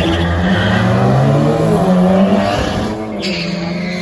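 Two drag cars, one a red VW Golf Mk1, launching off the start line and accelerating hard away. Their engines rise steadily in pitch, break at a gear change after about two and a half seconds, then fade down the strip.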